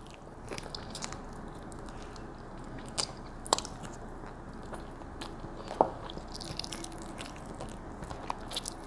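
Close-miked chewing and biting on a smoked chicken wing, with scattered mouth clicks; the sharpest come about three, three and a half and six seconds in.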